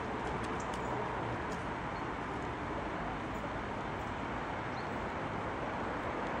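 Steady outdoor background noise, an even hiss with no clear single source, with a few faint short high chirps in the first second and a half.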